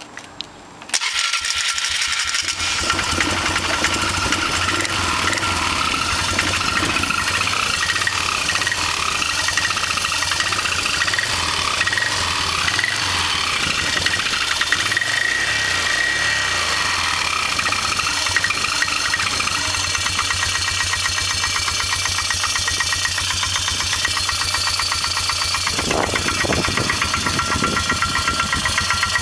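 2002 Polaris Magnum 325 ATV's single-cylinder four-stroke engine catching about a second in after a cold start, then idling steadily with a knock.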